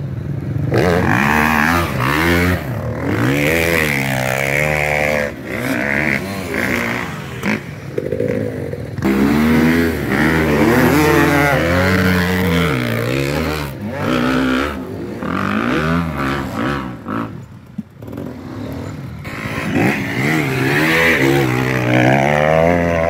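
Off-road motorcycle or quad engine revving, its pitch rising and falling again and again under throttle, with a short lull about three quarters of the way through.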